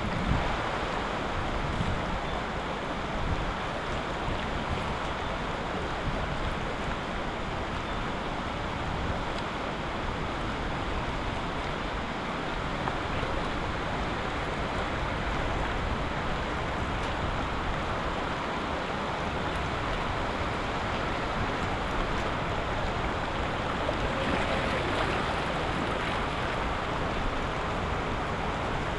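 Floodwater rushing steadily, a continuous even rush with no distinct splashes or knocks.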